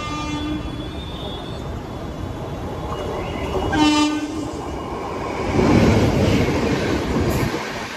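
Indian Railways WAP-7 electric locomotive sounding its horn, a brief blast at the start and a louder short blast about four seconds in, then passing close by with a loud rush and rumble of wheels on the rails.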